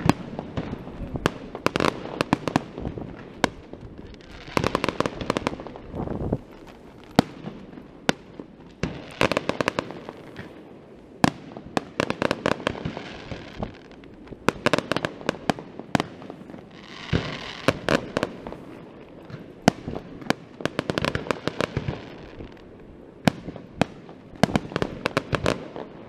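Fireworks display: aerial shells bursting with sharp bangs, and every few seconds a dense spell of crackling.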